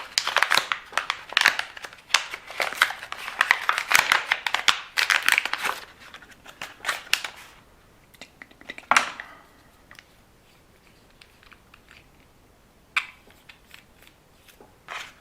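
Plastic packaging crinkling and tearing as it is handled and opened, busy for the first seven seconds or so, then one more sharp rustle and a couple of small clicks.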